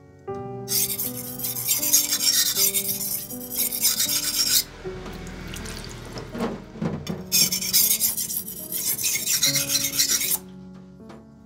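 A ZDP-189 steel yanagiba blade being ground in quick back-and-forth strokes on a wet whetstone, a gritty rasping scrape. There are two runs of strokes, about four seconds and then about three seconds long, with a short pause between them.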